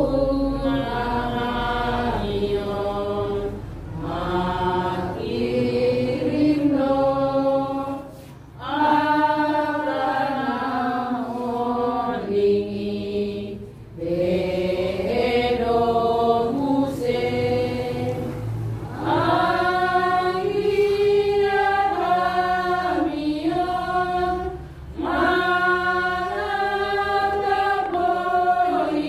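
A small group of mourners singing a hymn together, unaccompanied, in long held phrases with short breaks between them.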